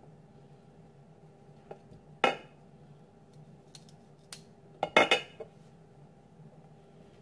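A kitchen knife clinking against a ceramic plate as asparagus is handled: one clink about two seconds in, and a quick run of three or four clinks about five seconds in.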